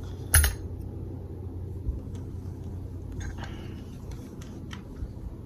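Parts of a .22 IWI Uzi pistol being handled during field-stripping: one sharp click about half a second in, then a few faint clicks and taps. A steady low rumble runs underneath.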